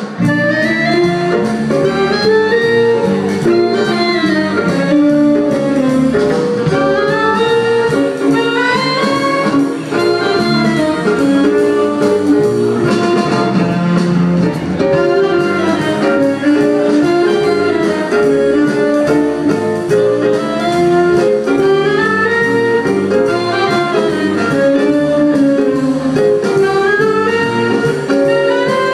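Jazz band with a saxophone section (alto, tenor and baritone saxophones) playing live, coming in suddenly at the start with moving horn lines over the rhythm section.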